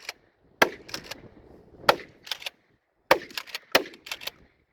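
12-gauge Remington 870 Marine Magnum pump-action shotgun fired several times in quick succession. Pairs of sharp clicks from the pump being racked fall between the shots.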